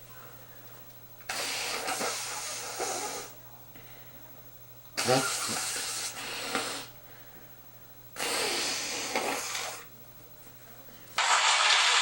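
A man blowing his nose hard three times, each blow a rush of air about two seconds long; the second starts with a short honking tone. A fourth blow starts near the end.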